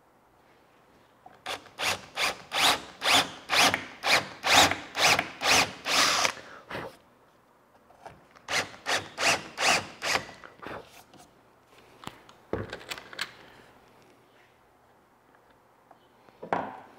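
Cordless drill driving screws into a wooden boat rail in short pulses of the trigger, about two to three bursts a second, in two runs of roughly a dozen bursts. A few short clicks follow near the end.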